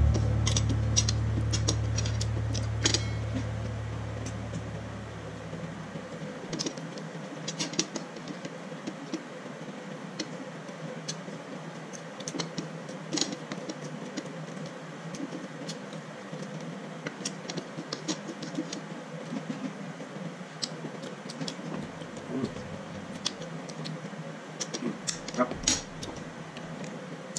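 Eating sounds: chicken and rice being picked apart and eaten by hand from a plate, with scattered small clicks, taps and mouth sounds. Background music fades out over the first few seconds.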